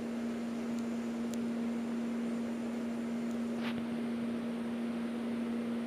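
A steady low hum with an even background hiss, like a fan or household appliance running. There is a faint, brief rustle a little past halfway.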